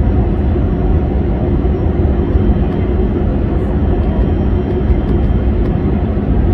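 Steady roar of a jet airliner's engines and rushing airflow, heard from inside the passenger cabin in flight.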